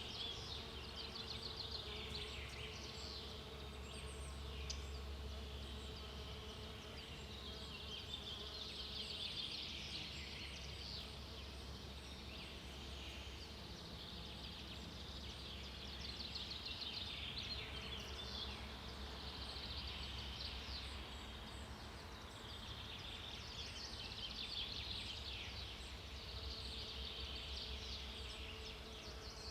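Daytime forest ambience: high, rapidly pulsing insect trills that swell and fade in waves every several seconds, over a faint steady low hum.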